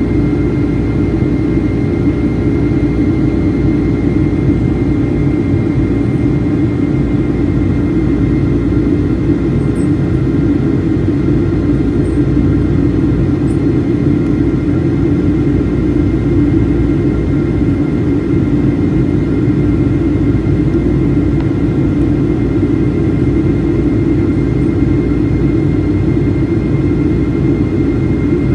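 Boeing 757 jet engines heard from inside the cabin during the climb after takeoff: a steady low roar with a few constant hum tones over it.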